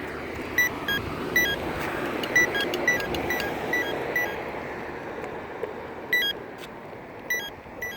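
Campbell accessible pedestrian signal push button at a crosswalk giving a run of short, low-pitched beeps, about two or three a second at first and more spaced out later, with traffic passing.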